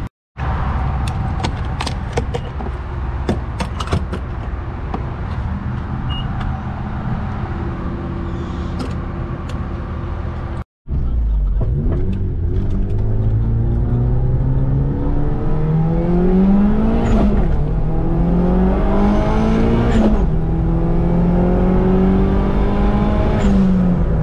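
Tuned wagon's engine, heard from inside the cabin. At first it runs steadily. Then, after a cut, it pulls hard under throttle, its pitch climbing through the revs with two gear changes, at about two-thirds of the way and again a few seconds later, and it eases off right at the end.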